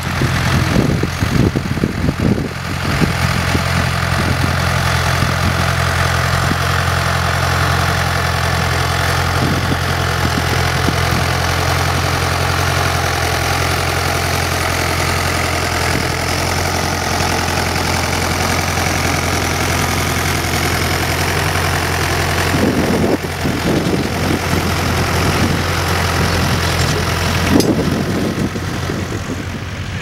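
Ford Major tractor's engine running steadily under load while pulling a two-furrow plough. Uneven low rumbling sits over it in the first couple of seconds and again around 23 seconds, and the engine sound drops a little near the end.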